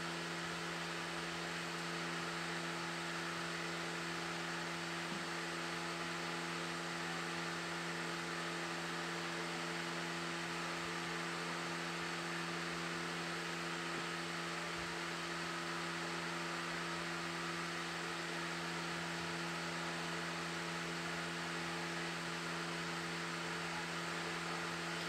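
Steady low hum made of several constant tones over an even hiss, unchanging throughout; no brush or other sounds stand out.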